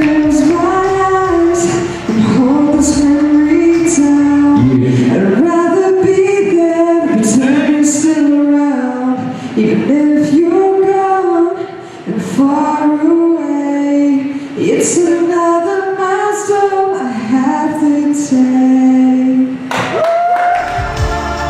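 A woman singing a slow melody in held, gliding notes, with little accompaniment under the voice.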